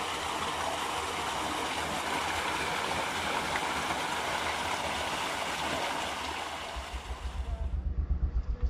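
Water gushing from two pump outlet pipes into a concrete tank: a steady splashing rush. Near the end it cuts off and a low, irregular rumble is left.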